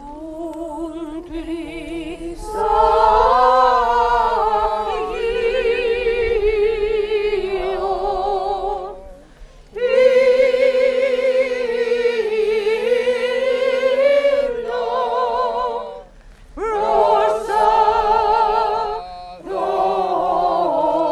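A women's choir singing a cappella in held phrases with vibrato, breaking off briefly about nine seconds in and again around sixteen and nineteen seconds in.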